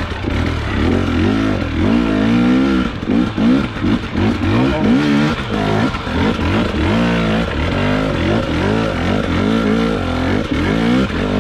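Husqvarna enduro dirt bike engine revving up and down in short throttle bursts, rising and falling every second or so, as the bike climbs up and over a large rock step.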